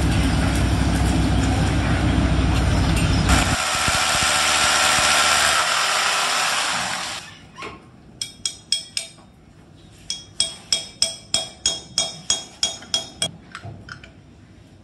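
A loud steady mechanical noise with a low hum, then a loud hiss that stops about seven seconds in, followed by a run of sharp metallic clinks, about four a second at their fastest.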